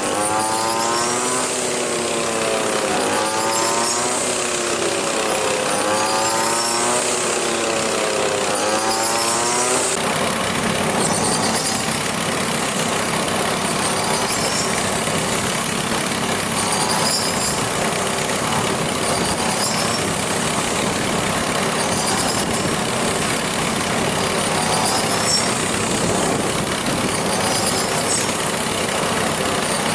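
A motor engine running. Its pitch rises and falls several times over the first ten seconds, then it runs on steadily.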